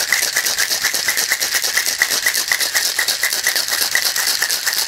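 Ice rattling hard inside a cocktail shaker, a metal tin fitted over a mixing glass, shaken vigorously in a fast, even rhythm of about five or six strokes a second to chill the drink.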